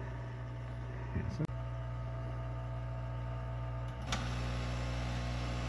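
Steady low electrical hum from bench equipment, with a sharp click about a second and a half in and another about four seconds in.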